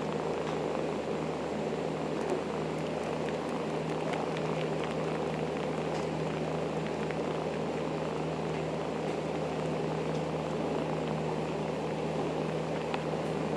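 Kitten purring steadily with its face pressed into a chenille bath mat as it suckles on it, with a few faint clicks.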